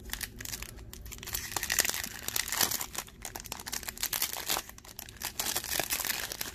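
Foil wrapper of a Pokémon booster pack crinkling and crackling as it is handled and torn open.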